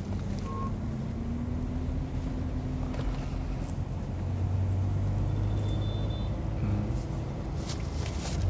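Engine and road noise heard inside the cabin of a BAIC BJ40 L SUV on the move. It is a steady low drone that grows a little louder and rises slightly in pitch about halfway through.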